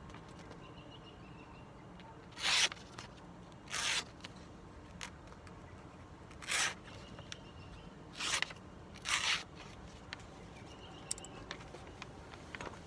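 Stainless-steel butterfly knife blade slicing through a sheet of paper, five quick cuts a second or more apart, as a test of its factory sharpness.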